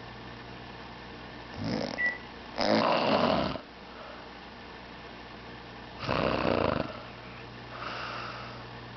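A sleeping woman snoring: two loud snores about three seconds apart, each with a softer breath beside it, over a steady low hum.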